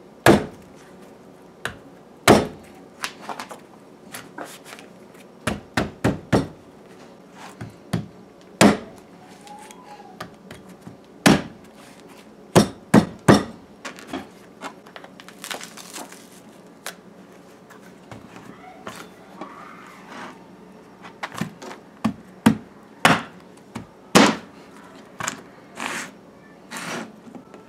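Cleaver chopping through spiky breadnut (catahar) fruit and striking a plastic cutting board: a long, irregular series of sharp thunks, some coming in quick pairs.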